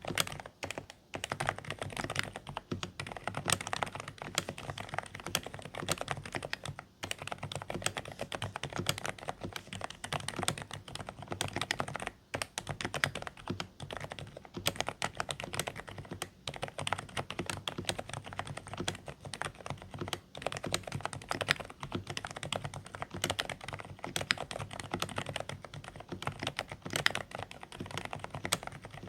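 Continuous fast typing on a Dareu A104 Pro mechanical keyboard with silent beige switches: dense, quiet, somewhat muffled keystrokes, broken by a few brief pauses.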